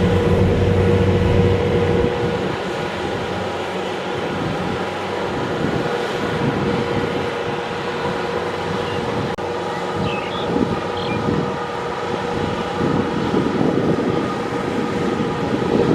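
Kubota DC-70 Plus combine harvester's diesel engine running steadily under working load with a constant drone, with wind noise on the microphone. The sound changes abruptly about nine seconds in.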